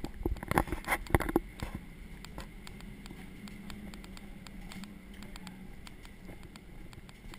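Footsteps and knocks while walking down a ship's interior corridor. A cluster of loud knocks and rattles comes in the first second and a half, then lighter, rapid ticks follow. A steady low hum runs underneath.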